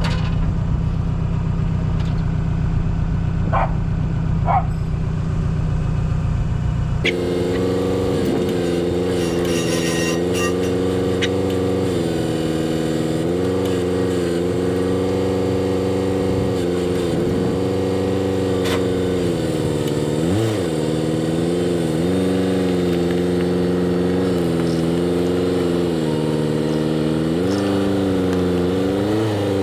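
Forklift engine running, its pitch repeatedly rising and falling as the engine is revved while the forklift is driven and maneuvered. The sound changes abruptly about seven seconds in, from a low steady hum to the revving engine.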